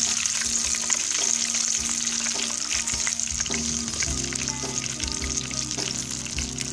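Battered chicken pieces deep-frying in hot oil: a steady high sizzle, scattered with small crackles.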